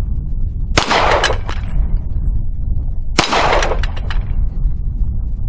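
Two shots from a Hi-Point .45 ACP pistol, about two and a half seconds apart, each followed by a short ringing tail.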